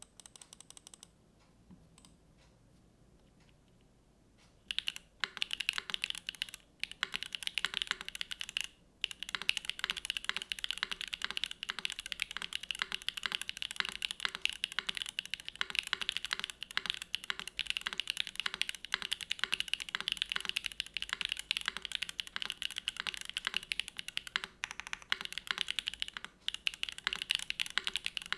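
Typing on a gasket-mounted SINGAKBD Kohaku mechanical keyboard with lubed Gateron Type R tactile switches, GMK Olivia keycaps and an aluminium plate. A few scattered key presses at first, then fast continuous typing from about five seconds in, with a couple of brief pauses.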